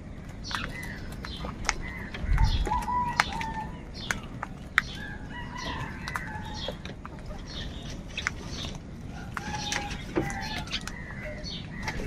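A flock of house crows cawing over and over in short, overlapping calls while they squabble over food, with sharp clicks scattered among the calls and a low thump about two seconds in.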